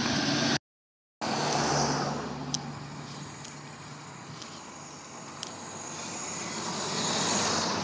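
A car approaching up a road, its engine and tyre noise swelling toward the end. The sound drops out to silence for about half a second near the start.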